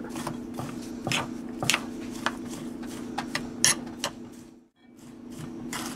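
A metal spoon stirring a crumbly pecan streusel in a glass bowl, giving irregular clinks and scrapes against the glass over a steady low background hum.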